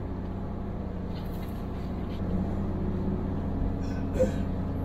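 Steady low drone of a motor yacht's engines running under way, heard inside the galley. A short click or knock comes about four seconds in.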